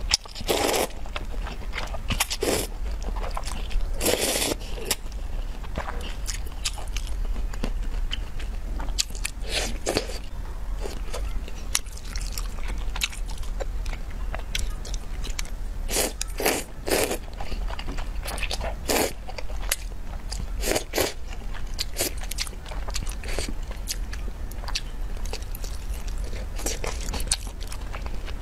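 A person eating noodles in spicy broth close to the microphone: irregular slurps of noodles, some drawn out for about half a second, with chewing in between.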